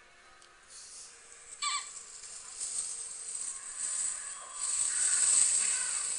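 Nature-video soundtrack played through the small speaker of a THL W8 phone, thin and without bass. A short bird call of a few quick rising notes comes about two seconds in. Then a rushing outdoor background noise builds and grows louder towards the end.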